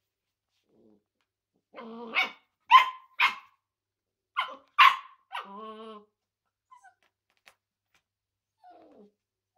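Nine-week-old smooth collie puppy barking: five sharp, high yaps between about two and five seconds in, with a low growl just before them and a half-second growl after. These are a puppy's alarm barks at an unfamiliar object it finds scary.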